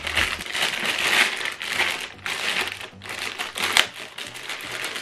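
Clear plastic packaging bag crinkling and crackling as it is handled in the hands, with one sharper crackle a little before four seconds in.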